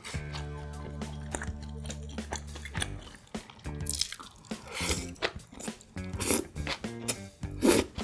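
Close-miked chewing and crunchy bites of food, with louder crunches in the second half. For about the first three seconds a steady low held tone sits under the chewing and then stops suddenly.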